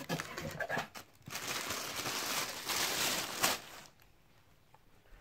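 Tissue paper rustling and crinkling as it is pulled open and pushed aside inside a cardboard box, stopping about four seconds in.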